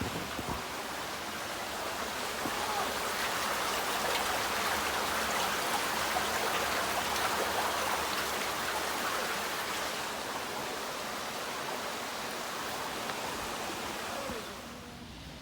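Running water rushing steadily, like a stream. It swells for several seconds in the middle and drops off sharply near the end.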